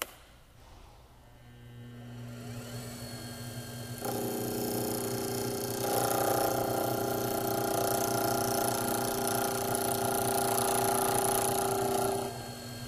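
Wood lathe's motor starting and winding up to speed, humming. From about four seconds in, a turning tool cuts the spinning wooden pen blanks, a steady scraping hiss over the motor. Near the end the tool comes off and the motor runs on alone.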